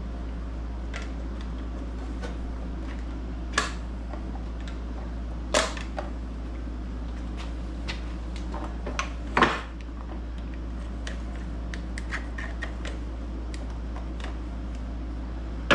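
Hand tools clicking and knocking against a MerCruiser stern-drive gimbal housing: three louder knocks about three and a half, five and a half and nine and a half seconds in, and a run of light ticks between about seven and thirteen seconds, over a steady background hum.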